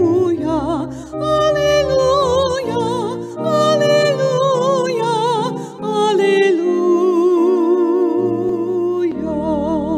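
Slow music: a melody with wide vibrato over sustained chords, with a new chord entering near the end.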